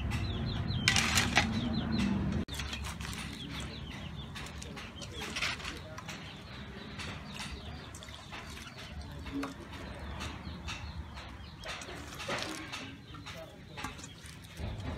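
Chickens clucking and small birds chirping over and over. A low steady rumble under them for the first couple of seconds cuts off suddenly.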